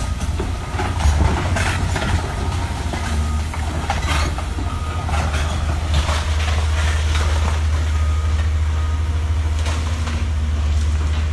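Heavy demolition machinery tearing down a house: a steady low engine rumble with irregular crunches and clatter of debris every few seconds.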